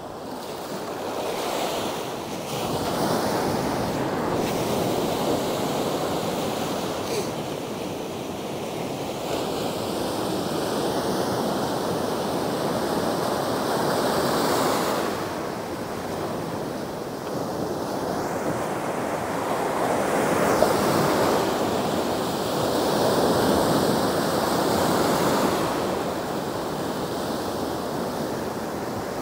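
Ocean surf breaking and washing up a sandy beach, swelling and easing in slow waves every several seconds.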